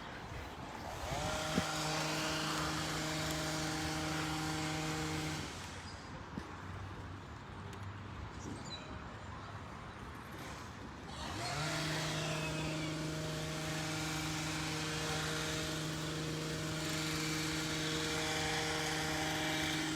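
A motor spinning up with a rising whine, running at a steady hum for a few seconds and stopping, then spinning up again about halfway through and running steadily.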